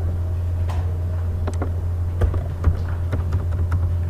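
Computer keyboard keys and mouse clicking in an irregular run of about ten sharp clicks as a number is typed in, over a steady low hum.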